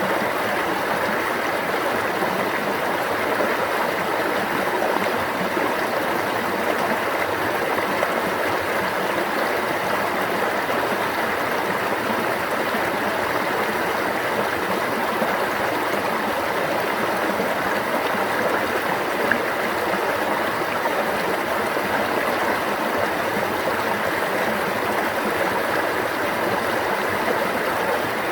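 Stream water flowing, a steady unbroken babbling rush.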